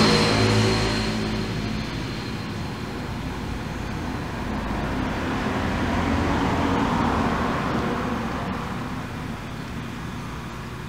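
Passing road traffic: a motor vehicle's engine fades away in the first second, then a wash of traffic noise swells and dies down again around the middle.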